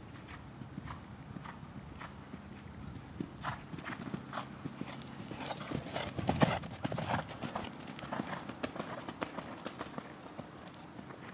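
Hoofbeats of a grey horse cantering on sand arena footing, a string of dull thuds that grow loudest as the horse passes close, about six seconds in, then fade as it moves away.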